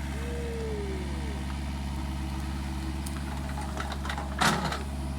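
Mini excavator's diesel engine running steadily, with a short falling whine in the first second and a loud sharp crack about four and a half seconds in.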